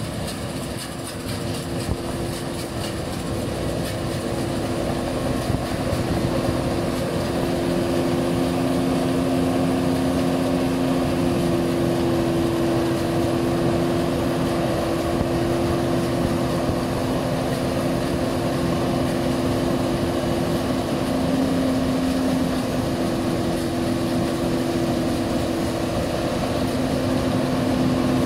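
New Holland 8070 combine harvester running while harvesting rice: a steady diesel engine and threshing machinery hum with a constant whine, growing louder over the first several seconds as the machine comes closer.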